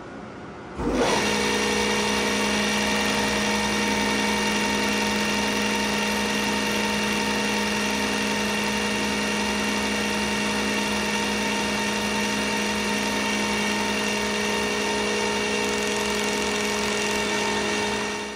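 Portable line boring machine running, its drive turning the boring bar as the insert takes the finish cut through the hitch bore. It starts about a second in and runs as a steady machine whine with several held tones over a rushing noise.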